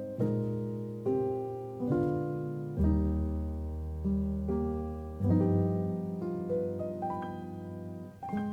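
Background music: solo piano playing slow chords, each struck and left to fade, a new one about every second.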